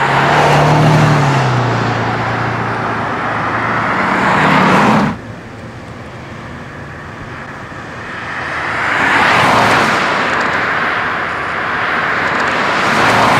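Vehicles passing by on a road: tyre and engine noise swells up and fades three times. The first pass cuts off suddenly about five seconds in.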